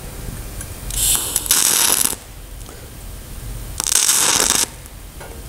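TIG welding arc on a steel-to-brass joint crackling and spitting sparks, in two bursts of about a second each: one about a second in, one near four seconds. The spitting comes from the zinc in the brass boiling off in the arc.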